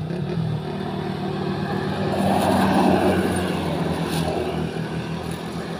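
A motor vehicle passing on the road, its engine and tyre noise swelling to a peak about two and a half seconds in and then fading, over a faint steady engine hum.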